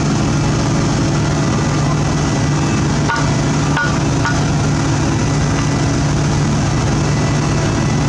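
Heavy diesel engines of an asphalt paver and a dump truck running steadily at a low, constant drone while the truck tips its load into the paver. Two brief clicks are heard a little past the middle.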